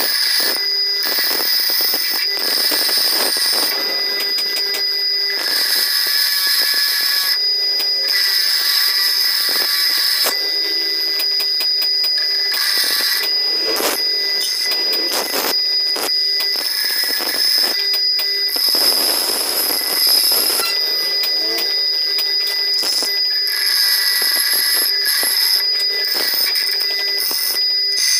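Bench grinder running with a steady high whine while a metal part is ground on its wheel; the rasping grind comes and goes many times as the piece is pressed on and eased off.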